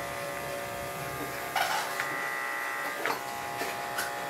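Electric dog grooming clippers running with a steady buzz while the dog is trimmed, with a few brief noises over the hum about one and a half and three seconds in.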